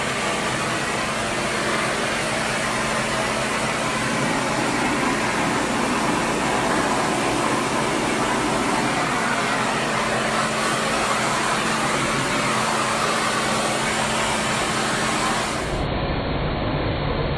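Forced-air dog dryer blowing steadily through its hose onto a wet dog's coat: a loud, even rush of air with a steady motor hum underneath.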